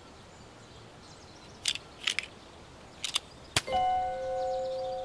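Cartoon sound effects: a few short soft swishes, then a sharp click about three and a half seconds in, followed by a steady two-note musical tone that holds on.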